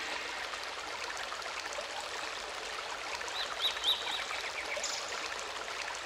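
Running-stream water ambience in the breakdown of an early-1990s house track, with no beat under it. A few short high chirps come about three and a half seconds in.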